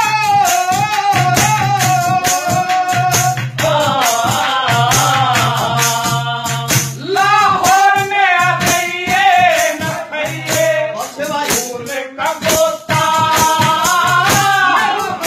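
A Haryanvi ragni sung by a solo voice in long, bending melodic phrases over percussion keeping a steady rattling beat.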